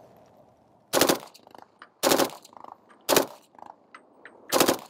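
M2 carbine firing .30 Carbine in full auto: four short bursts of two or three rounds each, spaced about a second apart.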